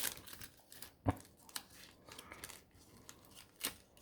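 Faint crinkling and tearing of a trading card pack wrapper as cards are handled, with a sharp click about a second in and another near the end.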